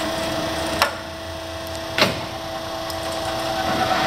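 Warner & Swasey No. 3 turret lathe spindle running under power with a steady whine, its main motor in the high (10 hp) range. Two sharp clunks come about a second apart, near one and two seconds in, as the headstock controls are shifted and the spindle goes into reverse.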